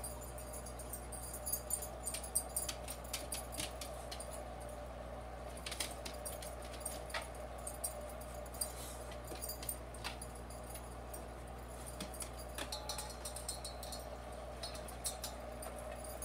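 Steady hum of aquarium equipment, overlaid with scattered light clicks and taps as a hand works in the water of the tank.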